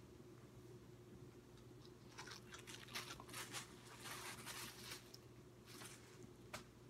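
Faint crunching of a small dog chewing a treat, in scattered bursts from about two seconds in, with a sharp click near the end.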